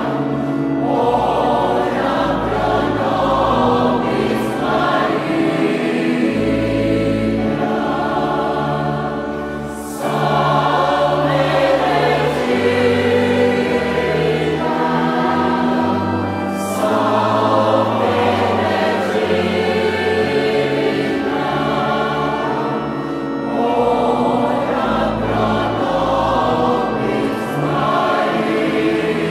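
Choral music: a choir singing slow, held phrases, with brief pauses between them.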